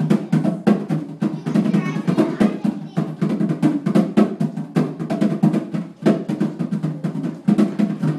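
A pair of wooden hand drums on a stand played with bare hands in a fast, continuous run of strokes, several a second.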